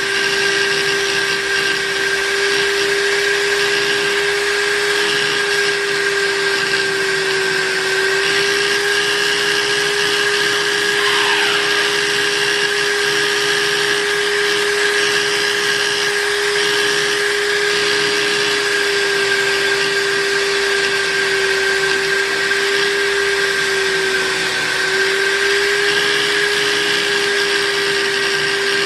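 Electric buffing machine running steadily, its motor giving a constant hum over the hiss of the spinning buffing wheel as a spoon knife is polished. A brief falling squeal comes about eleven seconds in.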